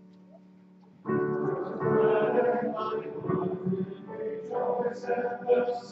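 Church congregation singing a hymn with piano accompaniment. A held piano chord fades for about a second, then the singing begins.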